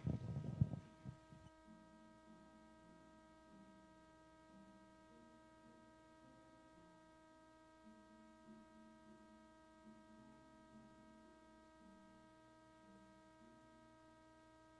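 Near silence with a steady electrical hum of several constant tones. A short louder bump and rustle comes in the first second or so.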